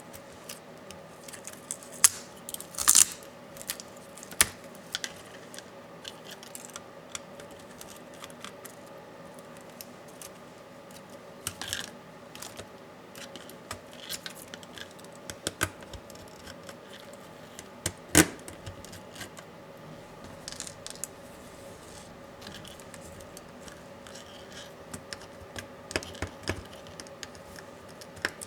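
Irregular small clicks and taps as tools and plastic and metal parts of a Dell Latitude 7410 laptop are handled during disassembly, with a cluster of sharper clicks about 3 seconds in and another single sharp click near the middle. A faint steady hum sits behind them.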